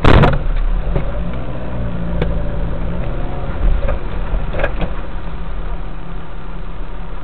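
A sudden loud bang of a collision impact, followed by the steady low rumble of a car's engine and road noise, with a couple of faint sharp knocks later on.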